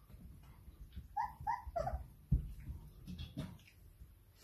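Irish setter puppy giving three short, high yelps in quick succession about a second in, among the scuffling of puppies at play, with a sharp thump just after.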